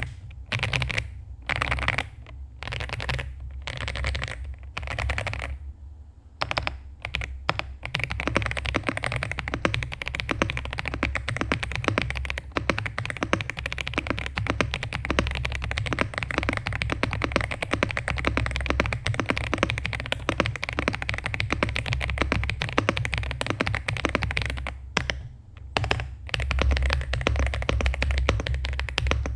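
Monka 3067 mechanical keyboard being typed on: short separate runs of key presses over the first few seconds, then fast continuous typing, with a brief pause near the end.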